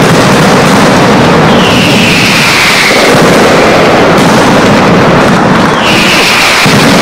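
Mascletà pyrotechnics: a very loud, continuous barrage of firecracker bangs with no gaps. Twice it is joined by a falling whistle, about a second and a half in and again near the end.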